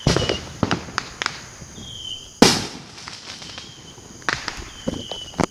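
Consumer fireworks going off: a scatter of sharp pops and crackles, with one much louder bang about two and a half seconds in that echoes away.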